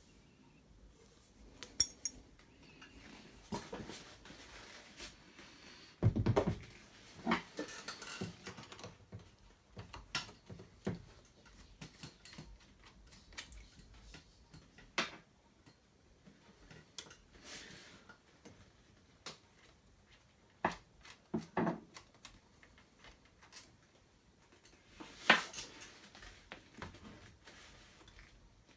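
Metal parts and tools being handled: scattered clinks and knocks, with a heavier knock about six seconds in and a sharp clink near the end.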